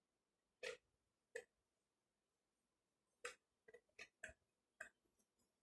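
Whiteboard being wiped with a handheld eraser in short, faint swipes: two in the first second and a half, then a quicker run of five near the end.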